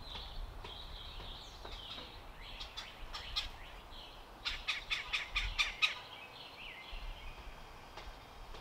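Outdoor birds chirping and calling in short notes. About halfway through comes a quick run of sharp clicking chips lasting about a second and a half.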